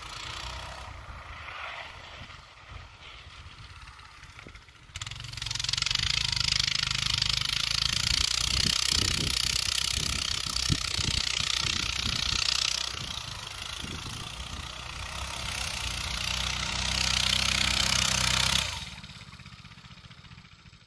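Coleman BT200X minibike's small single-cylinder engine running as it rides through snow: faint at first, suddenly loud from about five seconds in, easing off briefly in the middle, then dropping away sharply near the end.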